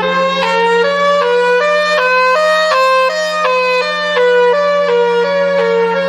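Emergency alert alarm tone: a loud, buzzy pitched tone stepping up and down in pitch about every third of a second, climbing to a peak midway and stepping back down, over a steady low drone.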